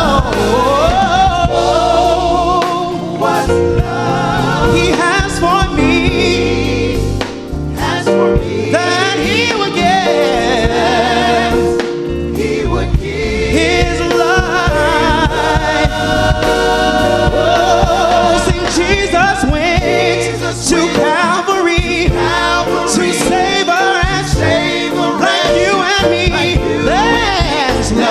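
Gospel music: a vocal group singing in harmony over sustained low accompaniment.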